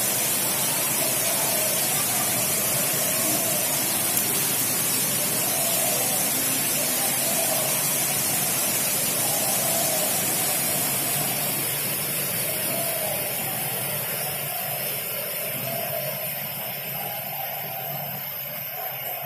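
A steady hiss, strongest in the high range, with faint voices underneath; it eases off a little in the second half.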